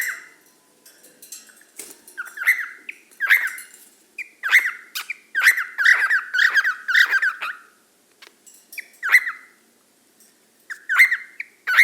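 Young male cockatiel giving short, sharp squawking calls over and over, in a fast run of calls in the middle and singly toward the end.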